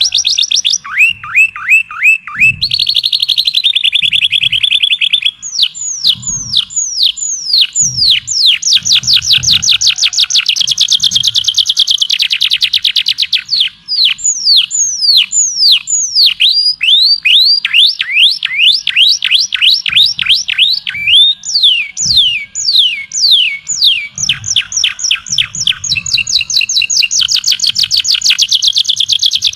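A songbird singing a long, varied song of rapid trills and runs of repeated downward-sweeping whistled notes, switching to a new phrase every few seconds.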